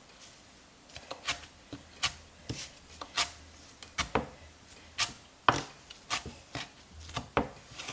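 Kitchen knife chopping fresh parsley and dill on a cutting board: sharp, uneven knocks of the blade on the board, about two a second.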